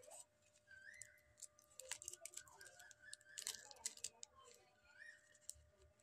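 Quiet handling noise: scattered clicks and rustles of paper and thin wires as a paper plane is fitted with its motor, battery and receiver board, loudest a little past the middle. Two short rising-and-falling whistled notes sound faintly, about a second in and near the end.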